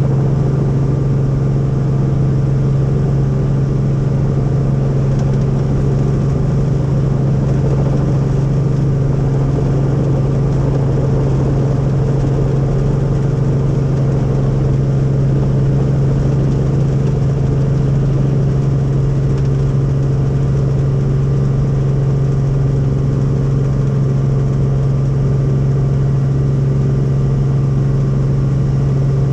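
Helicopter in flight: a steady, loud drone of rotor and engine with a strong low hum.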